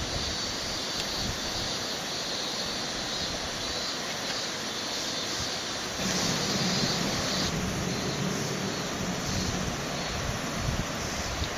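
Hydraulic excavator working, its diesel engine running steadily over a rushing background, growing louder about six seconds in.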